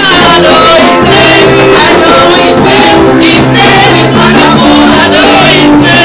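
Loud live gospel praise music: a woman singing lead through a microphone over a band with a bass line and shaken tambourines keeping a steady beat.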